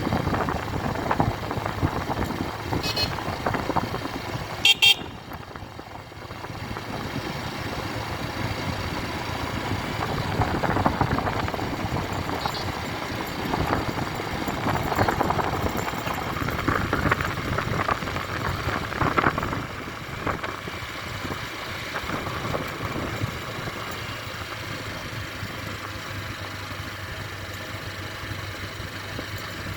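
Motorcycle running on a ride, its engine mixed with wind noise. There are two short high toots, one about three seconds in and a louder one just before five seconds.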